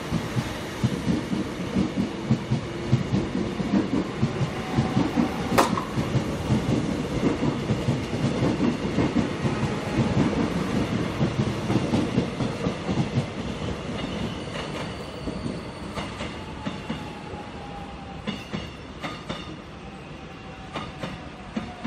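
Seoul Metro Line 1 electric train in cream and red livery running past close by, its wheels clicking rhythmically over the rail joints, the sound fading over the last several seconds. A single sharp click comes about five and a half seconds in, and a faint falling whine comes in near the end.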